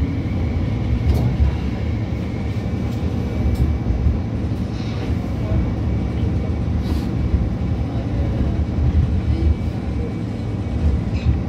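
An MTR Light Rail Phase III car running along the track, heard from inside the car. Its steady low rumble carries a faint high whine that fades in and out, and a few light clicks.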